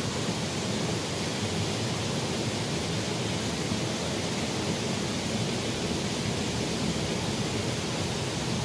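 Steady rush of a small, shallow stream flowing over a riffle, an even hiss-like noise that holds at one level throughout.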